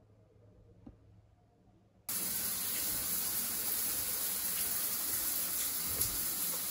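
Near silence, then about two seconds in a steady rush of running water starts abruptly and carries on evenly.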